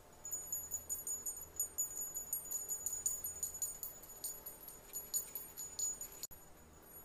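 Small bell jingling in quick, irregular shakes, stopping abruptly about six seconds in.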